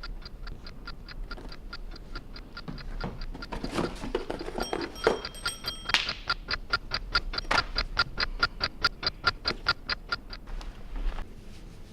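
Rapid, even ticking at about five ticks a second, which stops shortly before the end. A brief, broken high-pitched beeping tone sounds about five seconds in, and a few louder sounds rise over the ticking around the middle.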